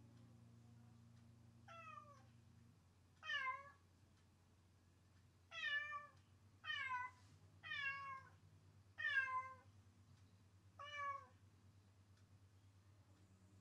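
A domestic cat meowing, seven separate meows each falling in pitch, coming a second or so apart.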